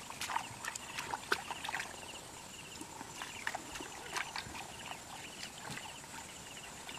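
Hands squelching and splashing in shallow muddy water while groping through the mud: irregular short wet clicks and splashes, busiest in the first couple of seconds and again around the middle. A faint high chirp repeats in quick groups behind it.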